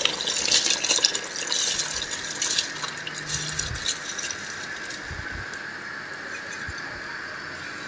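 Soaked rice sliding off a glass bowl and pouring into a pot of bubbling stock: a wet, crackling hiss of grains hitting the liquid, loudest over the first three seconds, then thinning to scattered ticks over a steady low hiss.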